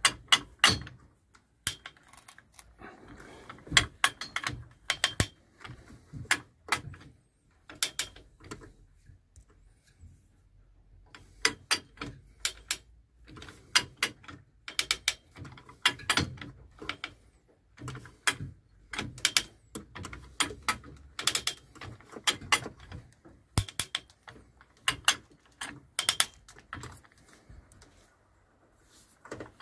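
Repeated bursts of sharp metallic clicks and knocks from hand work on a manual gearbox being fitted to a car engine, with short pauses between the bursts.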